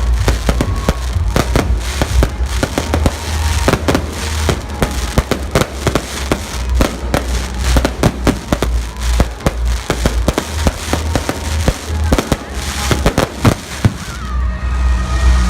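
Fireworks display: a rapid, irregular barrage of bangs and crackling with no let-up, over a steady low rumble.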